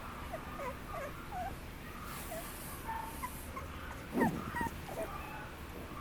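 Papillon puppy whimpering in a string of short, high squeaks, with one louder yip a little past four seconds in.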